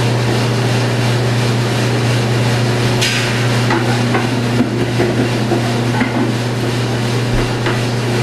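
Drum coffee roaster running with a steady low hum from its motor and blower, while a few sharp metallic clicks and knocks come from the front of the machine as it is handled, the loudest about three seconds in.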